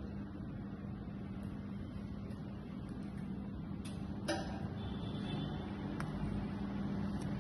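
A steady low electrical hum of the room, with a few faint light taps about a second and a half, four and six seconds in.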